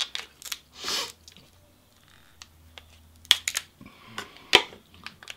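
Kitchen scissors snipping through a king crab leg's shell: sharp crunching clicks in a few quick snips, then a pause of about two seconds, then several more snips in the second half.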